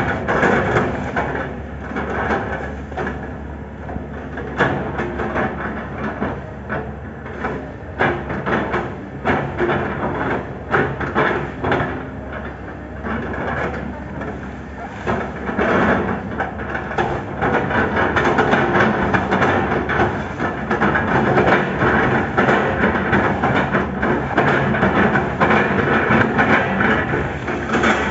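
Excavator engine running steadily under a chopping attachment, with irregular sharp knocks and cracks as oil palm trunks are torn and chipped.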